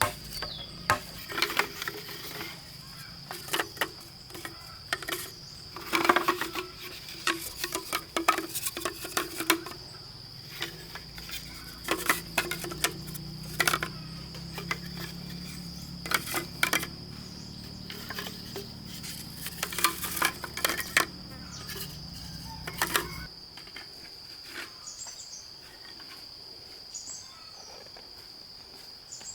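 Steady high-pitched insect drone, with irregular sharp clicks and knocks throughout. A low hum underneath stops about 23 seconds in.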